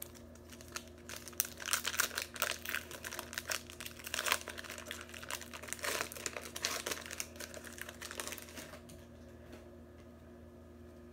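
Plastic wrapper of a football trading card pack crinkling and crackling as it is worked open by hand, dying away about nine seconds in.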